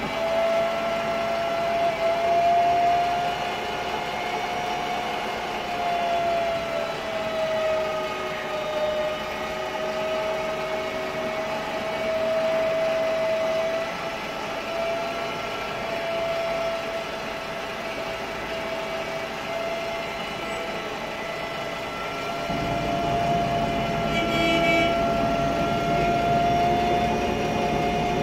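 Voith DIWA 864.3 automatic gearbox of a 2007 MAN Lion's Classic CNG city bus, heard from inside the passenger cabin: a steady high tone that dips a little in pitch and climbs again, over the MAN E2876 gas engine. The low engine and road rumble grows louder about 22 seconds in.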